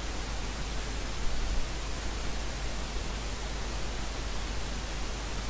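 Steady hiss with a low hum beneath it, recording noise with no distinct sound event.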